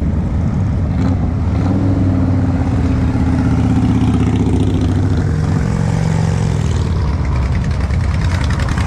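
Several big cruiser and touring motorcycle engines running at low revs as the bikes roll by slowly in traffic, a steady deep engine sound with pitch shifting a little as riders ease off and on the throttle.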